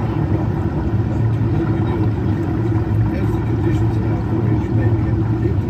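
Steady low rumble and hum inside the Finding Nemo Submarine Voyage submarine during its simulated dive, with faint crackling as air bubbles stream past the porthole.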